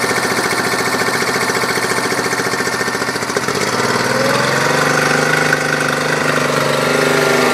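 Honda 30 HP four-stroke three-cylinder outboard running with its cowling off, a fast, even mechanical chatter that smooths out and picks up slightly in speed about halfway through.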